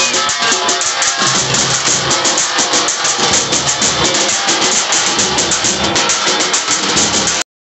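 A troupe of frame drums beaten with sticks in a fast, steady beat, with crowd noise under it. The sound cuts out for a moment just before the end.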